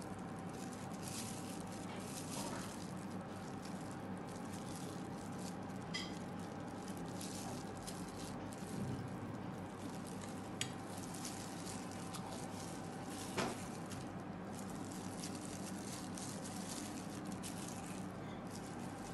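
Quiet steady background hiss with a faint steady tone, and a few soft clicks and taps of a spoon and glass bowls as avocado toast is assembled by hand: three brief clicks, the sharpest a little past the middle.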